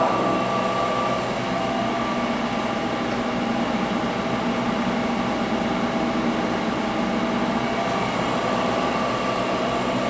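CNC press brake running with a steady machine hum and several steady tones, as its back gauge and ram (Y-axis) drive into position for a bend.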